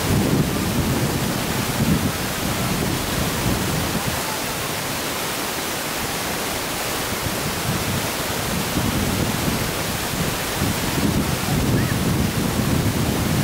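Wind on the microphone: a steady hiss, with gusts of low rumble near the start and again through the last few seconds.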